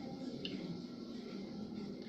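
Faint eating sounds: chewing and food handled by hand, with one small click about half a second in.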